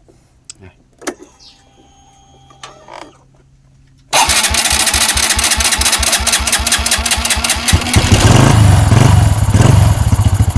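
Honda Wave 110i's single-cylinder four-stroke engine starting up about four seconds in, on its first test start with a newly fitted 28 mm throttle body and no air filter. It runs with a rapid even pulse, then grows louder about eight seconds in as it is revved. Faint clicks come before the start.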